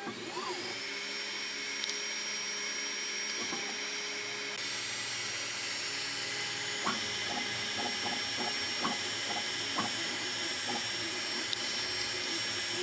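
3D printer running a print: a steady high motor whine that rises in pitch over the first second, with short chirps and ticks from about seven seconds on.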